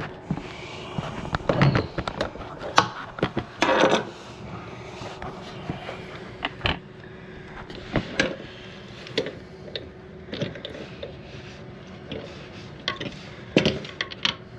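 Irregular clicks, knocks and scrapes of hands and tools loosening a toilet's water supply line and the plastic fill valve nut. A faint steady hum sits underneath.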